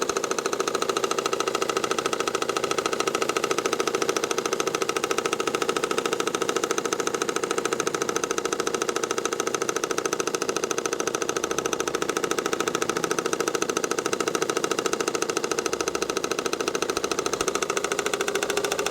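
Car engine running steadily with a rapid, even knock. The owner puts the knock down to the crankshaft damper pulley, which has covered 135,000 km.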